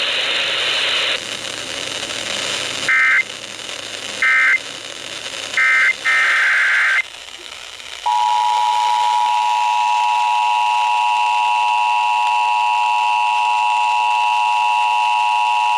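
Emergency Alert System tones: three short bursts and one longer burst of SAME digital data warble at two pitches. After about a second's pause comes the steady two-tone EAS attention signal, which runs on, loud and unbroken, announcing the next alert. The radio audio before the bursts cuts off about a second in, leaving faint hiss between them.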